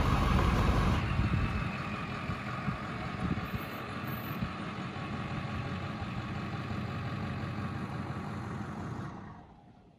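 Ford F-350 Super Duty pickup's engine running as the truck moves slowly along a dirt road. The sound is louder for the first second, then steadier, and fades out near the end.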